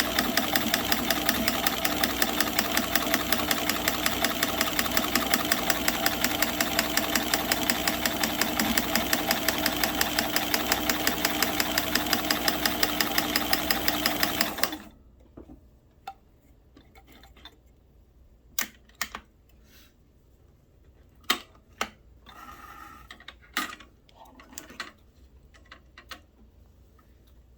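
Kenmore 158.1703 sewing machine driving a Kenmore 36149 monogrammer, running steadily with a rapid, even stitch rhythm, then stopping abruptly about fifteen seconds in. A few scattered clicks and small handling noises follow.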